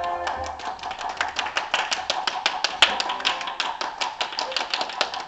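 Rapid, irregular tapping and clicking, several strikes a second, over faint music.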